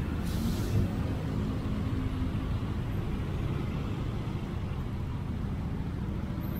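Honda Click 125i scooter ridden through traffic: its small single-cylinder engine running steadily under road and wind noise. A brief hiss comes about half a second in.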